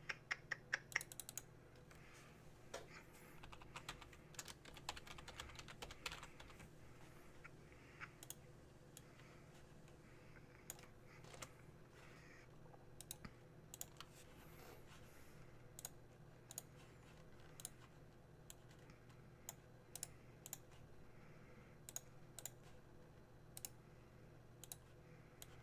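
Faint computer keyboard typing and clicking: a quick flurry of keystrokes right at the start, then irregular single clicks spaced a second or so apart, over a faint steady low hum.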